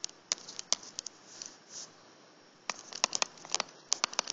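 Stylus tapping and scraping on a tablet touchscreen while handwriting: a string of sharp clicks and short scratchy strokes, with a lull of about half a second a little past the middle, then a quicker run of clicks.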